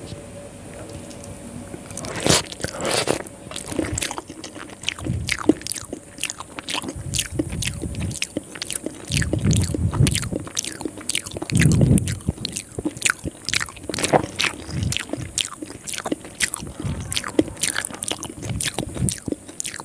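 Close-miked wet chewing and lip smacking of soft rice vermicelli soaked in sweet coconut milk. There are many sharp smacks in quick succession, with a few heavier squishy mouthfuls.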